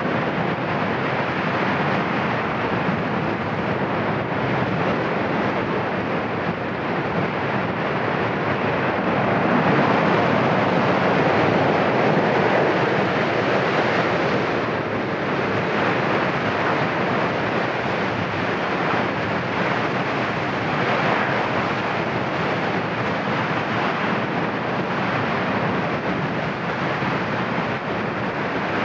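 Cumbre Vieja volcano's erupting vent giving off a continuous rushing roar as it jets out ash and gas. The roar swells louder about a third of the way in, then eases back.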